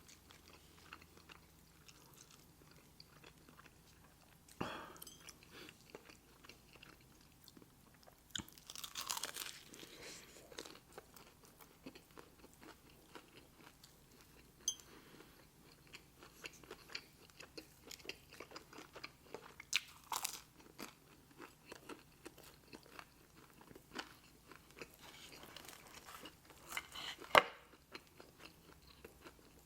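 Close-miked chewing and biting of food, with scattered crunches and a few louder snaps.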